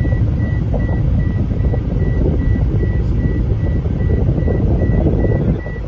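A car driving on an open road, heard from inside the cabin: a steady low rumble of tyres and engine. Over it, a high electronic beep pulses about four times a second.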